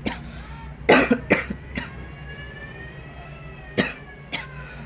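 A person coughing in short, harsh bursts: a run of coughs about a second in and two more near the end. This is put-on coughing, faking coughing up blood.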